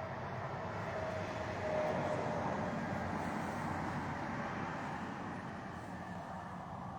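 A passing vehicle: a steady rush of road noise that swells to its loudest about two seconds in and then slowly fades.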